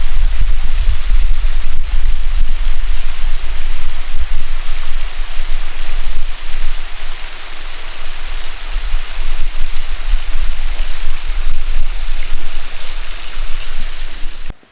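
Creek waterfall cascading: a loud, steady rush of water with a low rumble that swells and fades. It cuts off abruptly near the end.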